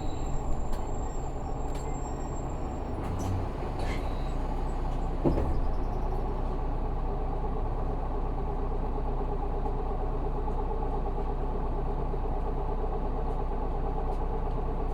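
Isuzu Erga city bus's 6HK1 inline-six diesel idling steadily, heard from inside the passenger cabin while the bus stands at a stop. A few light clicks and a single thump come about four to five seconds in.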